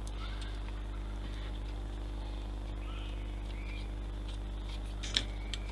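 Steady low electrical hum under faint high chirps, with one sharp click about five seconds in as the plastic model track parts are handled while held together for the glue to set.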